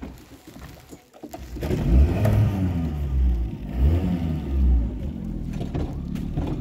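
A boat's engine running, coming up loudly about a second and a half in, its pitch rising and falling.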